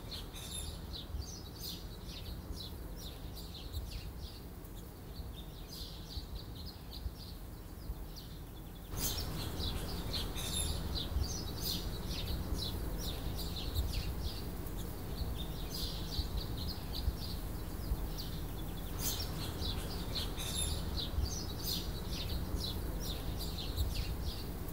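Faint bird chirps repeating over a low steady hum. Everything gets a little louder about nine seconds in.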